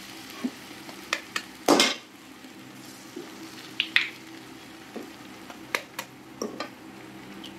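Eggs frying in hot oil with onions and green chillies in a metal kadhai, a steady sizzle. Sharp taps and clicks come through it as eggs are knocked open against a slotted steel spatula and the pan and dropped in. The loudest knock is about two seconds in.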